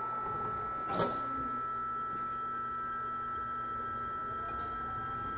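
Steady high-pitched electrical whine from an E129-series train's onboard equipment, with a sharp click about a second in and a faint rising tone near the end.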